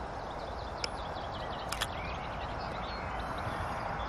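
Small birds chirping faintly over a steady outdoor rush with a low rumble. A sharp click about a second in and two more close together just under two seconds in.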